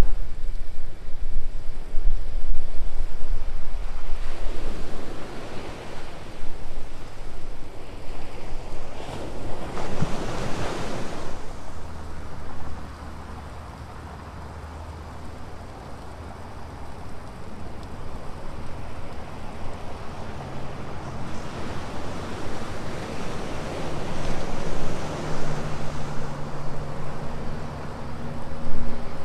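Ocean surf breaking and washing up the beach in repeated surges, with wind buffeting the microphone in the first few seconds. From about halfway through, a low steady engine hum runs under the waves.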